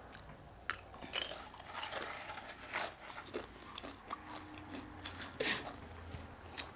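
Tortilla chips being bitten and chewed, a series of short crisp crunches at irregular intervals.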